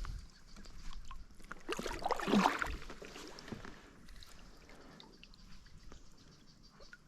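Water splashing and sloshing, with one louder splash about two seconds in, followed by small drips and ticks.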